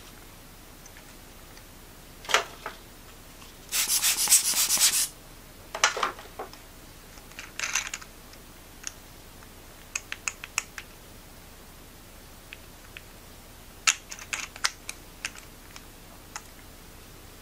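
Handling sounds from cleaning a camera lens element by hand: scattered light clicks and taps, and about four seconds in, a louder scratchy rub made of rapid pulses lasting about a second and a half.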